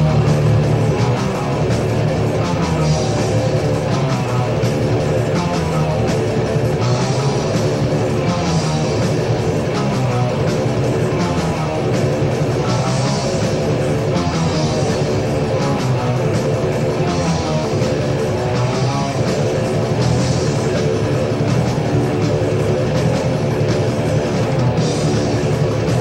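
Heavy metal band playing a song from a 1987 demo tape: electric guitars, bass and drums, loud and steady throughout.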